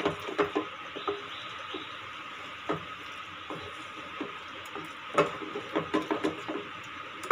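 Wooden spatula stirring a stiff semolina dough in a non-stick pan: irregular scrapes and soft knocks against the pan, over a steady background hiss.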